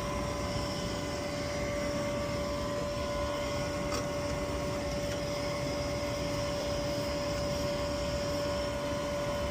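Air Temp ultra low NOx gas furnace running steadily: an even hum of burner and fans with a steady whine, with its manifold gas pressure just set to 3.3 inches of water column. A faint click about four seconds in.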